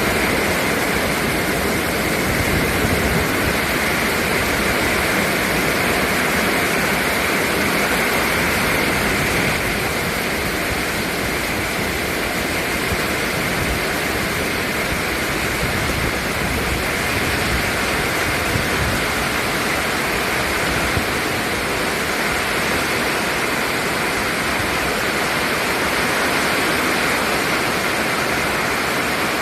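Storm with heavy rain, a steady loud hiss of falling water with no let-up.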